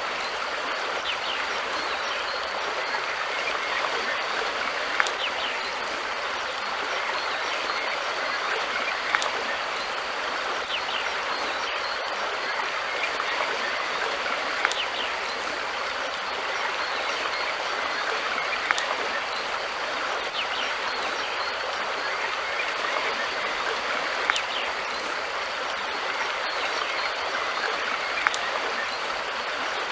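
River water flowing, a steady even rushing, with a short sharp tick about every four to five seconds.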